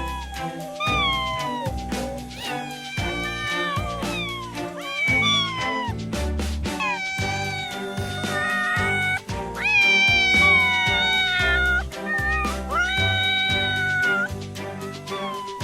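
A domestic cat meowing over and over, about eight calls, some short and some long and drawn out, over background music with a steady beat.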